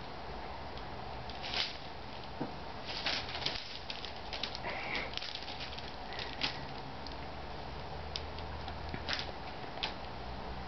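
Foil gift-wrapping paper crinkling and rustling in short, scattered bursts as a cat shifts and gets up on it.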